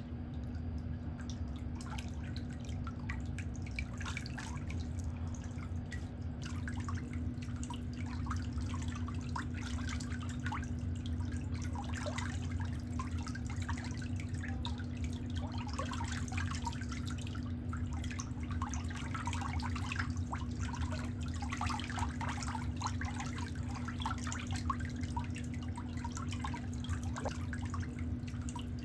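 Water dripping and trickling in many small irregular drops, over a steady low hum.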